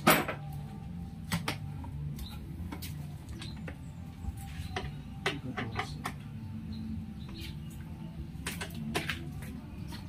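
Scattered metal clicks and light knocks from hand work with a long metal tool on a motorcycle's rear frame, over a low steady hum. The loudest knock is at the very start, and a few more come in small clusters.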